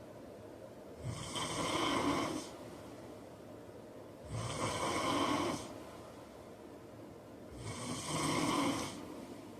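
A man snoring in his sleep: three loud snores, one about every three seconds, each lasting just over a second.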